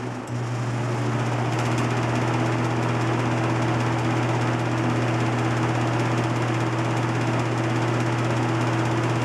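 Holmes 20-inch box fan running with a loud, steady motor hum. About a third of a second in, the hum changes briefly, then runs louder. The fan is a noisy one that moves little air.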